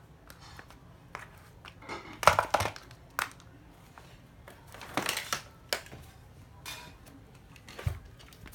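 Hard plastic cordless drills being handled: a run of clatters, knocks and rattles as they are picked up and set down, loudest about two seconds in and again about five seconds in.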